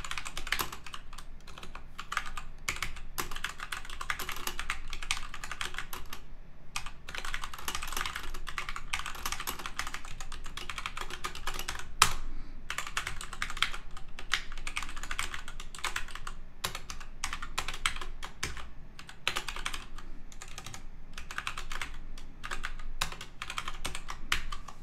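Fast typing on a computer keyboard: runs of rapid key clicks with short pauses, and one louder keystroke about halfway through.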